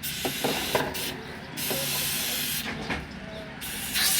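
Hissing blasts from a pressurised nozzle in three bursts of about a second each, with a few light clicks between them, during work on a CVT transmission.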